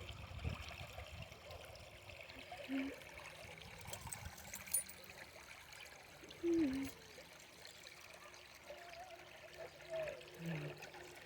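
Small stream trickling faintly and steadily. A few brief low tones stand out about 3, 6 and 10 seconds in.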